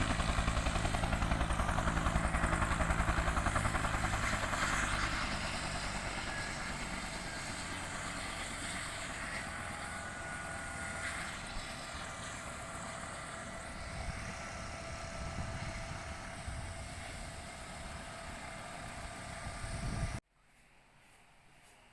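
Military helicopter running, its rotor beating in a fast, even pulse over the turbine's whine and hiss, growing gradually fainter; the sound cuts off abruptly near the end.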